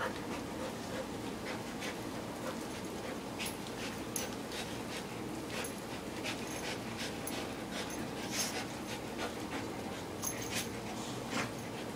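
An Old English Sheepdog and a chocolate Labrador Retriever play-wrestling, with breathing noises and many short, sharp clicks scattered throughout.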